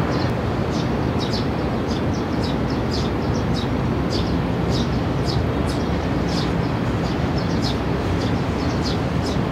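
A steady low rumble with a faint hum, under many quick, irregular high chirps from small birds.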